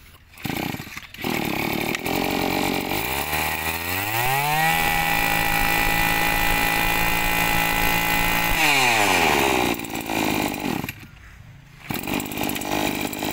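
A small Maruyama 23 cc two-stroke brush cutter engine, pull-started and idling, then revved up to high speed, held there for about four seconds, and let back down to idle.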